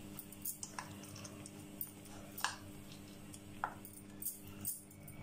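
Steel spoon stirring soaked moong dal with grated coconut and mango in a plastic bowl: soft scrapes and a few light clicks of the spoon against the bowl, over a steady low hum.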